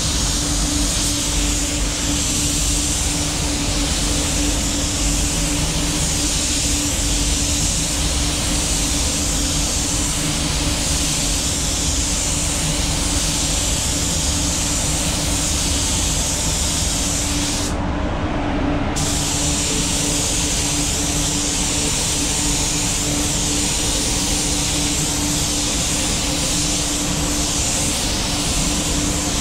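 Compressed-air paint spray gun spraying primer in a steady hiss, which stops for about a second past the middle as the trigger is let off between passes. Under it runs the constant hum of the spray booth's ventilation.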